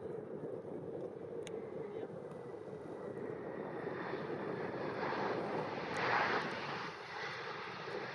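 Jet airliner engines passing, their noise swelling steadily and loudest about six seconds in, with a faint high whine in the middle.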